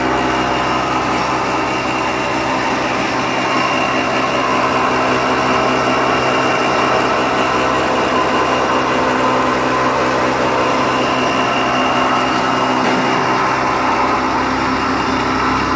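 M40 millet milling machine running steadily under load as it hulls millet: an even hum with several held tones over a rushing noise.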